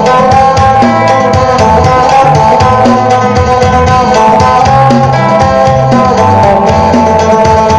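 Isan phin, a three-string Thai lute, picked in a quick folk melody over ringing drone strings, with a drum beat and bass line accompanying it.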